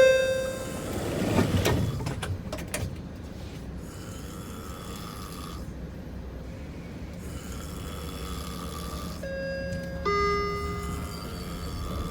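A man snoring in long, slow breaths over the steady hum of a subway car. About nine seconds in, an electronic two-tone chime sounds.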